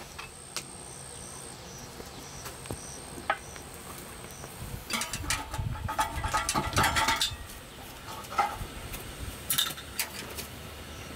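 Metal handling noises: a spell of clattering and clinks about halfway through, then a few separate metallic clicks as the lid of a metal samovar is lifted off. Faint regular high chirps sound in the background during the first few seconds.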